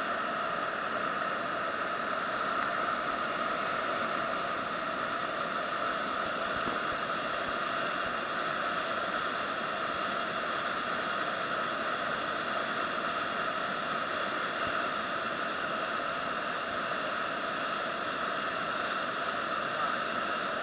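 Steady rush of a whitewater river rapid, water churning and foaming without a break.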